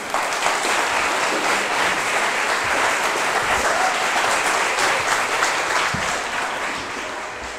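Audience applauding, loud and steady, tapering off near the end.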